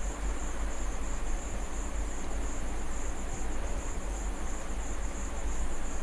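Crickets chirping in an even pulsing trill, about two to three pulses a second, over a steady hiss of oil sizzling in a kadhai, with a low rumble underneath.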